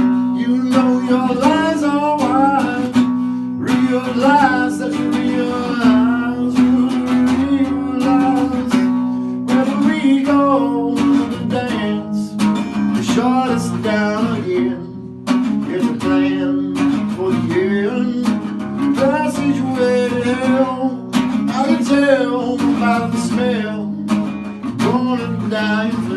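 Music: acoustic guitar strummed and plucked under a singing voice.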